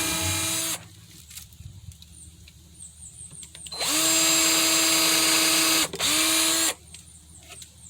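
Power drill driving screws into plywood: a steady motor whine in three runs, stopping under a second in, then a longer run of about two seconds that rises in pitch as it spins up, and a short final burst as each screw is driven down.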